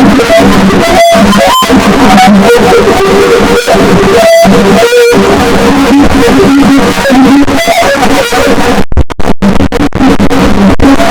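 A sneezing sound heavily processed through stacked Vocodex vocoder effects, turned into a loud, dense, buzzing pitched tone that sounds like music. It drops out briefly several times, most choppily near the end.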